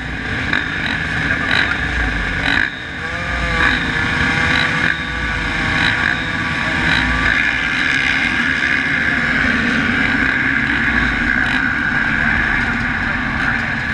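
A field of motocross bikes running at the starting gate, engines held at a fast idle and revved now and then while waiting for the gate to drop.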